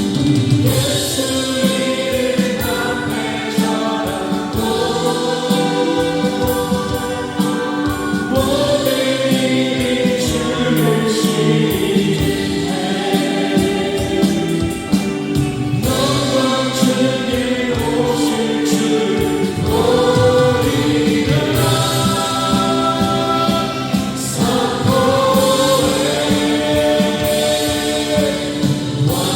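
Music: a choir singing, with long held notes in phrases that change every few seconds.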